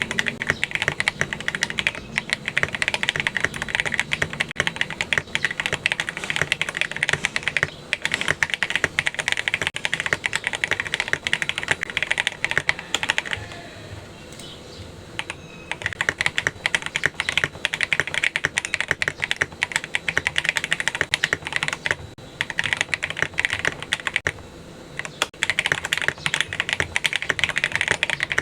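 Fast typing on a Tecware Veil87 mechanical keyboard with lubed Akko CS Crystal linear switches, a steel plate, tape and PE-foam mods, and SA keycaps: a dense run of key clacks. The typing stops for about two seconds midway and briefly again near the end.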